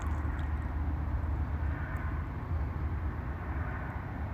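Steady low outdoor rumble with no clear source, with a couple of faint clicks about half a second and two seconds in.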